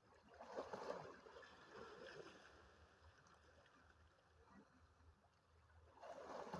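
Faint sea waves washing in: one surge swells about half a second in and fades away over several seconds, and another builds near the end.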